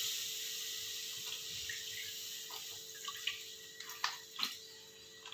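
Milk pouring from a packet into a hot frying pan: a steady splashing hiss that fades gradually as the stream thins, then a few last drips near the end as the packet empties.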